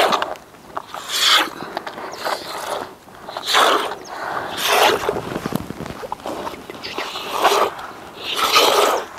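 Hand milking a cow: streams of milk squirting from the teats into a plastic container, a short hissing spurt about once a second.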